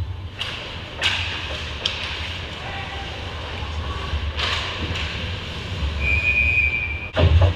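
Ice hockey play on the rink: skate blades scraping the ice and sharp clacks of sticks and puck, over a steady low rumble, with a short steady high tone near the end.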